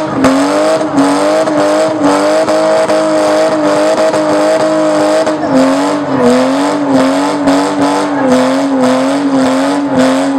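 BMW E30 saloon's engine held at high revs in a burnout, its rear tyres spinning on dirt; the pitch stays high and dips slightly and recovers several times in the second half.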